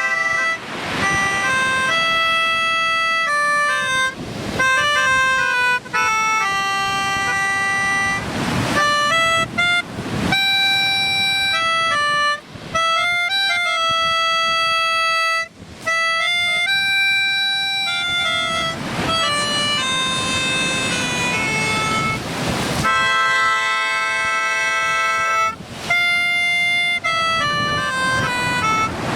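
Melodica (Pianica) playing a slow tune of held notes, often sounding several notes together as chords, in short phrases with brief breaths between them.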